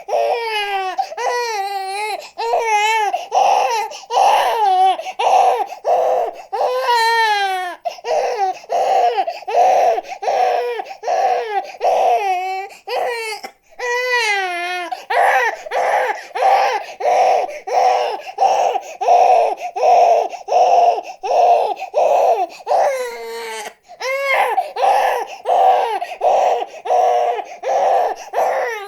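A baby crying in short repeated bursts, about two a second, the pitch wavering up and down.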